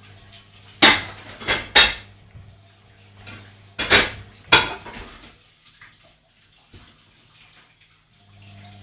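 Washing machine running: a steady low motor hum with loud clattering knocks in two bursts, one about a second in and another about four seconds in. The hum stops a little after five seconds and starts again near the end.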